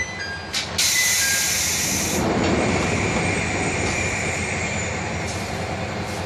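The air-operated sliding doors of a KiHa 0-series diesel railcar closing: a click, then a sudden loud hiss of released air about a second in that dies away a second later. The railcar's diesel engine is running steadily underneath.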